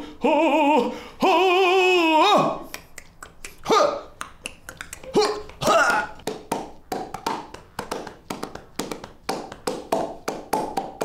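A man's voice recording vocal sounds into a studio microphone: a few held, wavering sung notes at the start, then a rapid run of mouth clicks and short vocal pops and blips made with the hands cupped around the mouth, like vocal percussion.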